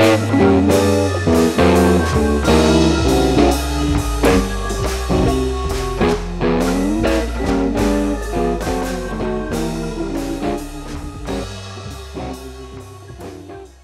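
Background music with a steady beat and a moving melody over a bass line, gradually fading out toward the end.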